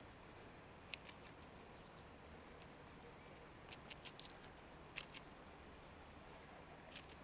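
Domestic goose biting and tearing a crisp lettuce leaf with its bill: faint, sharp crunching snaps, scattered one by one with a quick run of them about four seconds in, over a low background hiss.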